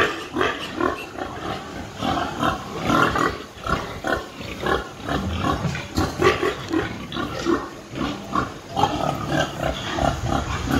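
Pigs in a farm pen grunting, with many short calls following one another without pause.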